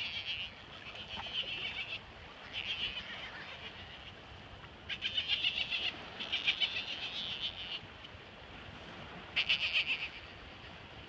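Otters calling while mating: a series of about six high-pitched, raspy squealing calls, each lasting half a second to a second and a half, with short gaps between them.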